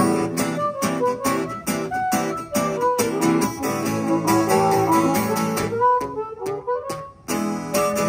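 A harmonica cupped against a microphone plays held and gliding notes over a strummed acoustic guitar. The music drops away briefly about seven seconds in, then the guitar comes back.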